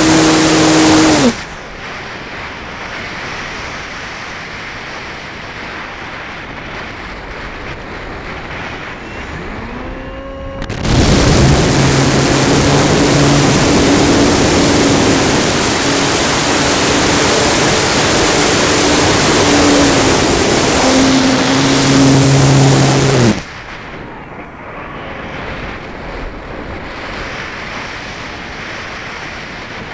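Electric motor and propeller of a 64-inch Extreme Flight MXS RC aerobatic plane, heard from an onboard camera over wind rush. The motor whine drops away about a second in, leaving only wind rush over the airframe. About eleven seconds in the throttle comes back up with a rising whine and runs at high power until it cuts off sharply near 23 seconds, after which only wind noise remains.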